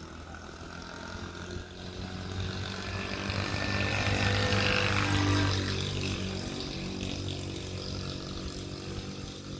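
A motorcycle engine passing on the road below, growing louder to its loudest about halfway through and then fading.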